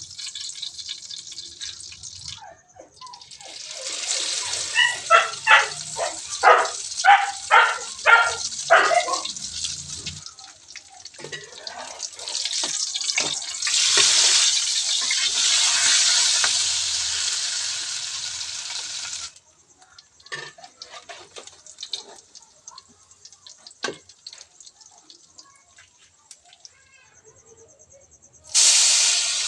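Shrimp fritter batter frying in hot oil, with a sizzling hiss that swells, fades to scattered crackles and pops, then comes back loud near the end. Partway through, a quick run of about eight short pitched squeaks sounds over the sizzle.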